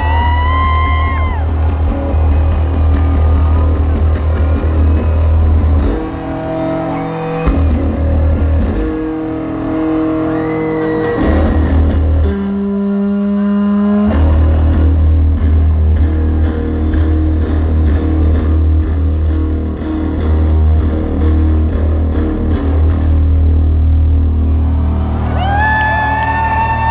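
Live rock music: a heavily distorted electric bass solo, a deep droning rumble with slow held notes over it. The rumble drops out for several seconds in the middle, leaving higher held notes, and a wailing, rising cry sounds at the start and again near the end.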